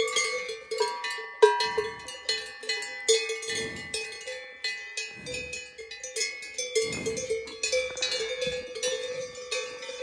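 A large metal cowbell on a grazing cow's collar clanking irregularly as the cow moves her head, each strike ringing on the same pitch.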